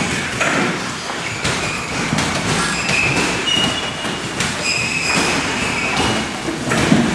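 Steady din of a busy fight-training gym, with repeated knocks of gloves striking pads and a few short high squeaks.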